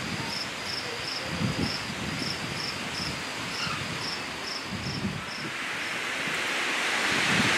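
Steady hiss of rain at night with a cricket chirping in a regular rhythm, about two to three chirps a second, and occasional low rumbles. The chirping stops about five seconds in, and near the end the rain hiss grows louder.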